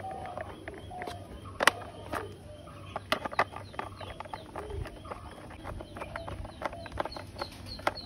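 Small screwdriver turning screws into the plastic chassis of a toy police car: a run of light, irregular clicks and scrapes of metal on plastic. Birds call faintly in the background.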